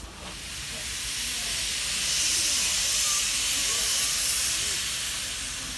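Steam locomotive SJ 1916 blowing steam from its cylinder drain cocks: a loud hiss that starts suddenly, swells over about two seconds, and eases off near the end.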